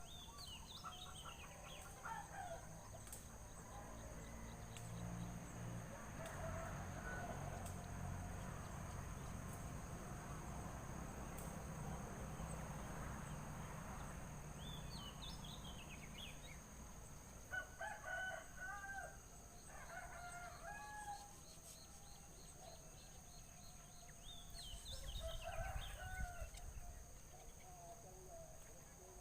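Birds calling in short falling chirps several times, with a rooster crowing in the middle of the stretch, over a steady high-pitched insect drone.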